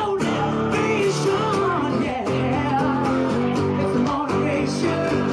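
Blues band playing: a woman singing over guitar.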